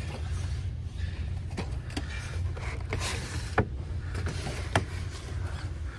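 A steady low rumble with a handful of sharp plastic clicks, from die-cast cars in blister packs being handled and moved on store pegs.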